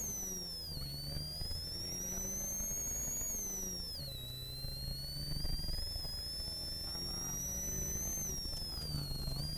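Ford Sierra RS Cosworth rally car's turbocharged four-cylinder engine accelerating through the gears, heard from inside the cabin. The loudest part is a high-pitched whine that climbs with the revs and drops at each upshift: about a second in, about four seconds in, and near the end.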